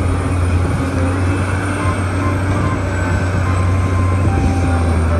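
Liebherr 984 hydraulic mining excavator's diesel engine running under load in a steady low drone while it loads rock into a dump truck.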